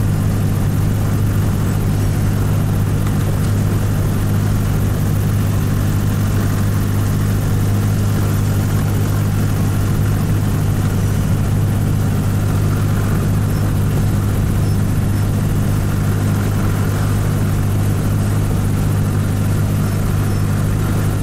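Cessna 172's piston engine and propeller running steadily while the plane taxis, heard inside the cabin as an unbroken low hum.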